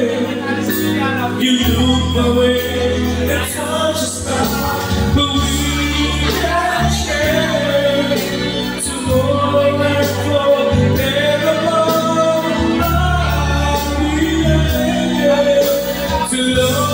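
A man singing into a handheld microphone over recorded backing music with steady bass notes, the voice amplified and holding long, gliding notes.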